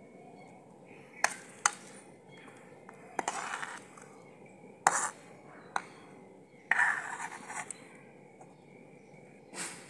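Steel ladle clinking and scraping against a metal kadhai while scooping candied watermelon-rind pieces out of the sugar syrup: a few sharp clinks and three short scrapes.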